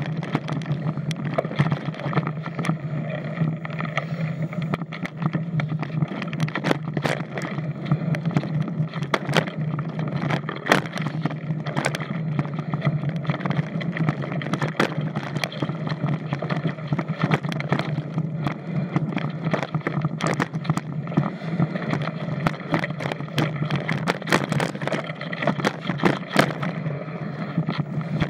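Mountain bike riding fast down a dirt singletrack, heard from a camera mounted on the bike or rider: a steady rush of tyres and air, broken by frequent irregular rattles and clacks of the chain and frame over bumps and roots.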